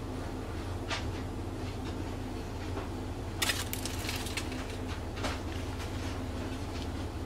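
Light crinkling and rustling of paper as a tissue is rubbed over the plant's leaves among newspaper and foil packing, with a short burst of crinkles about three and a half seconds in, over a steady low hum.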